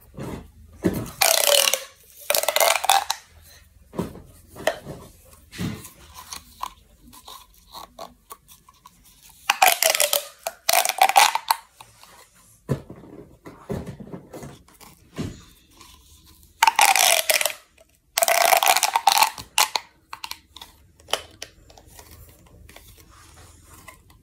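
Ribbed plastic pop tube toy being stretched out and squashed back, three times, each time a pair of short rasping zips that fall and then rise in pitch, with light handling clicks in between.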